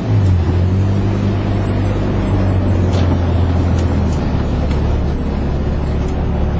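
Rally car's engine heard from inside the cabin: a brief dip at the start, then a steady run that drops a little in pitch about four seconds in as the car eases off.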